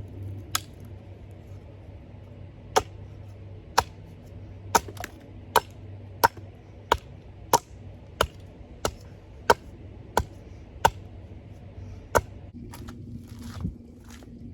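A tool striking wood again and again, about fifteen sharp blows at a steady pace of roughly one every two-thirds of a second.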